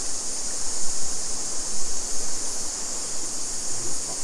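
Creek water running steadily, with a continuous high-pitched chorus of cicadas over it.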